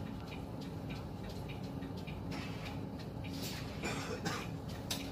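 Inside a moving tram: a steady low running hum with an even ticking about three times a second, and a few short louder hisses near the end.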